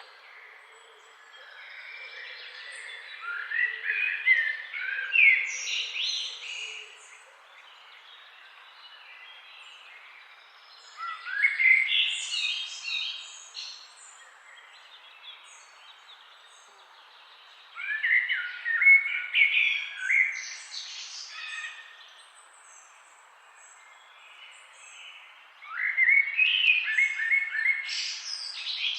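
A songbird singing in four separate bursts of quick, high, rapidly changing notes, each about three seconds long and coming roughly every seven to eight seconds, over the steady rush of a flowing forest stream.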